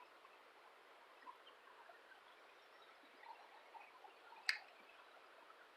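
Near silence with a faint steady hiss, a few faint ticks, and one short sharp click about four and a half seconds in.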